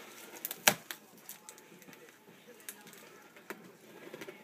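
Cardboard shipping box being handled and opened: scattered light clicks and taps, with one sharp knock under a second in.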